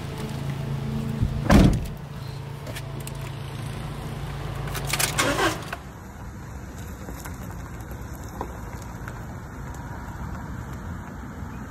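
Campervan engine idling with a steady low hum, a sharp door slam about a second and a half in and another clatter around five seconds; the engine sound then gives way abruptly to a quieter steady background.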